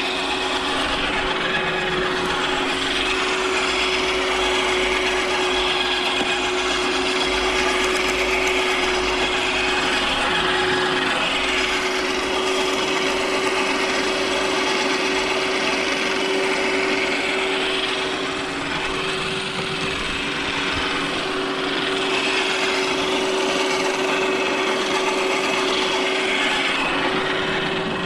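Corded electric garden branch shredder running with a steady hum, grinding up small branches fed into its hopper.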